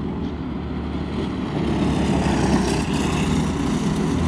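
A pack of racing go-kart engines running at speed, growing louder as the karts come around the turn toward the listener.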